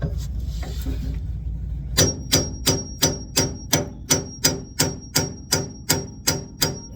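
Hammer striking a steel pickle-fork separator, driving it in to pop the idler arm's tapered joint loose. About two seconds in, a steady run of some fifteen blows at about three a second starts, each with a high metallic ring.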